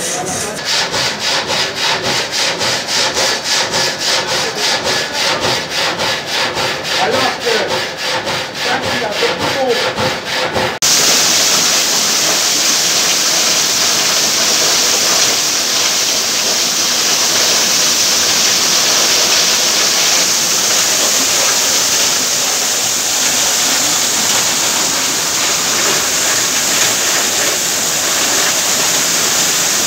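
Water-powered sawmill's frame saw cutting a log, its blade going up and down in a fast, even rhythm of strokes. About eleven seconds in, the sound changes suddenly to a steady rush of water driving the mill's spinning shafts, pulleys and flat belts.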